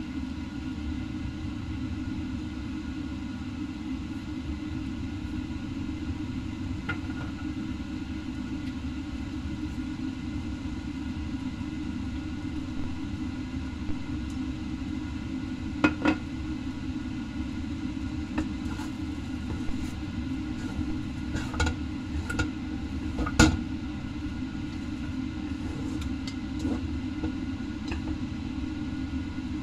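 Wooden chopsticks clicking and knocking against a stainless steel wok of noodles a few times, the loudest knock about 23 seconds in, over a steady low rumble.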